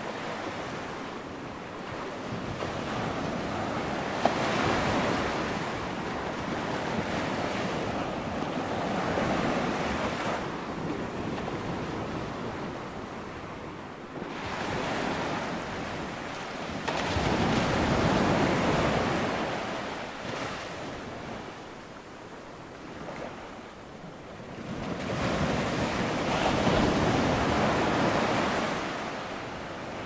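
Ocean surf: waves breaking and washing in, a continuous rush of water that swells and ebbs every several seconds, with the biggest surges a little past halfway and near the end.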